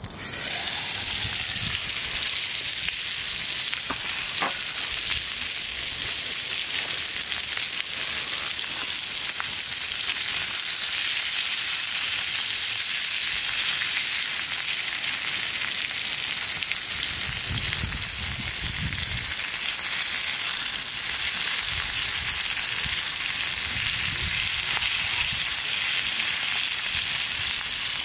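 Food frying over high heat: a steady, dense sizzle that cuts in abruptly at the start and holds evenly throughout, with a few soft low rumbles around the middle.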